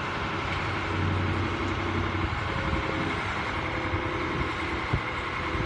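Crane boat's engine running steadily at idle, with one sharp knock about five seconds in.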